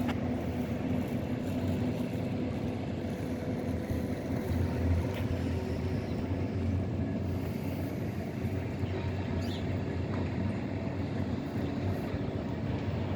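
Zagreb ZET tram running with a steady low rumble and a faint constant hum.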